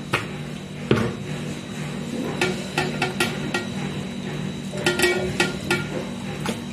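Knocks and clinks against a metal cooking pot as washed raw chicken pieces are put into it, with clusters of quick strikes about two and a half seconds in and again around five seconds in.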